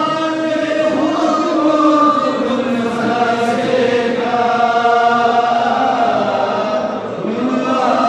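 A group of voices chanting in unison, holding long drawn-out notes that slide slowly from one pitch to the next.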